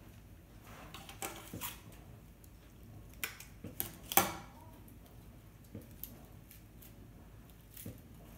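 Rustling of conifer sprigs being handled and pushed into the arrangement, with a few short sharp clicks; the loudest, about four seconds in, is a snip of hand pruning shears.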